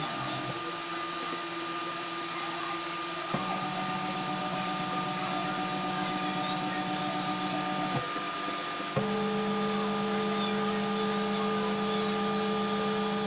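Homemade 3D printer's stepper motors whining steadily as it prints, over a steady hiss. The whine jumps to a new pitch with a faint click three times: about a quarter of the way in, then twice more a second apart past the middle.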